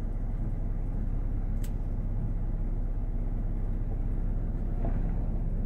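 Work van's engine running at low revs, heard from inside the cab while the van backs up slowly: a steady low hum. A single short click about a second and a half in.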